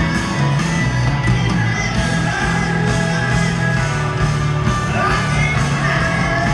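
Live rock band playing in an arena, heard from the audience: electric guitars over bass, drums and keyboards, with a guitar bending notes about five seconds in.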